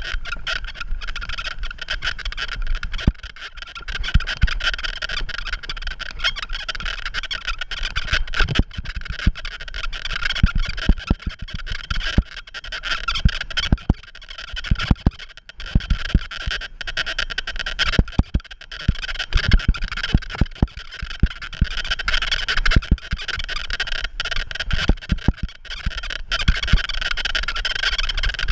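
Frogs or toads calling in a dense, continuous chorus, with frequent short low thumps mixed in.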